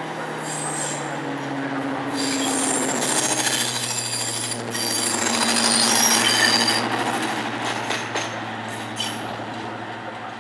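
Class 55 Deltic diesel locomotive D9009, with its twin Napier Deltic two-stroke engines, running past on its own. Its steady engine note grows to a peak about six seconds in and then fades as it pulls away, its pitch sinking. High-pitched squealing rides over it while it passes.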